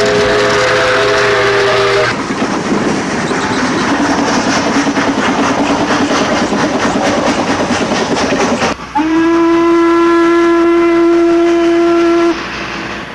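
A train whistle sounds a three-note chord, which stops about two seconds in. The train then runs on the track with a rhythmic clatter. About three seconds from the end, a single-note whistle blows steadily for about three seconds and cuts off.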